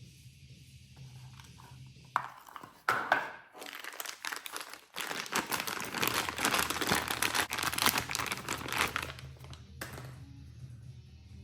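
Packaging crinkling as it is unwrapped by hand, with a few sharp handling noises about two to three seconds in, then steady crinkling from about five to nine seconds in.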